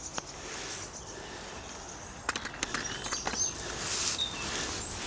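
A few light clicks and rustles of fishing tackle being handled at the bankside, with small birds chirping in the background.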